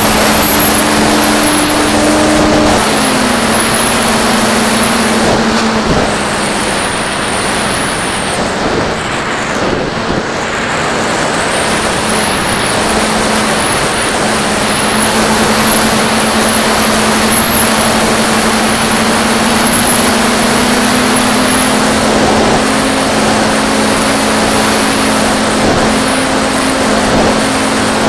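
Electric motor and propeller of a Mako flying wing running steadily, heard from the camera riding on the aircraft, with a loud rush of wind over the microphone. The sound eases for a few seconds about a third of the way in, then picks up again.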